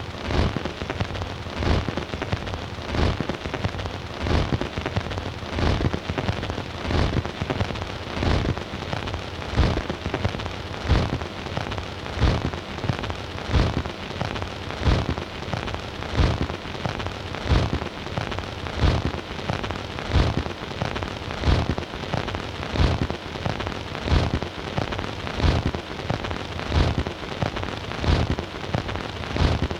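Stylus running in the unmodulated groove of a 78 rpm shellac record on a Bush record player: a steady crackle and hiss of surface noise, with louder clicks recurring at a regular pace as the disc turns.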